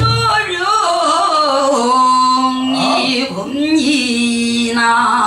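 A female pansori singer singing a Boseong-school sori passage, her voice bending and wavering between notes and settling into long held tones about two and four seconds in.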